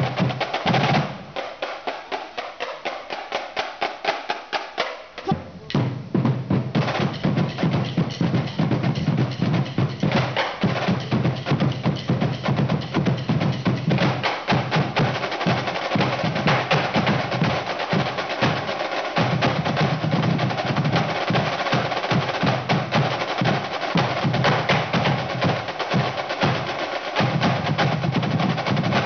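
Swiss drum corps playing Basel snare drums in unison, with fast stick strokes and rolls backed by bass drums. Between about one and five seconds in, the playing turns lighter with no bass drum, and then the full corps comes back in.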